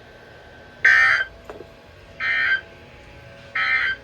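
Emergency Alert System end-of-message signal from NOAA Weather Radio: three short bursts of digital data tones, each under half a second, spaced about a second apart, marking the close of a severe thunderstorm warning.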